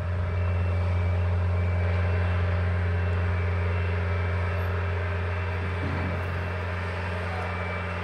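An engine running steadily with a low, even drone and no change in speed, most likely the construction machinery working the steel.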